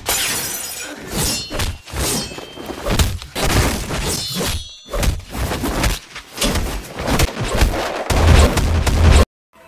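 A glass bottle smashing at the start, then a run of punch and body-hit impacts, thuds about every half second to a second, the heaviest and deepest near the end, cutting off suddenly.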